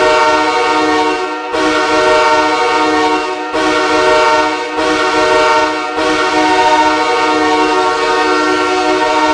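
Ice hockey arena goal horn blasting loudly, the signal of a goal scored. It sounds in a series of blasts with brief breaks about every one to two seconds, then one long blast held from about six seconds in.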